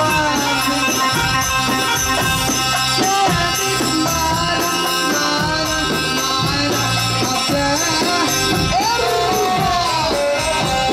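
Loud Egyptian sha'bi wedding music: a driving beat of hand drum and jingling percussion under a melodic lead line whose pitch bends and slides.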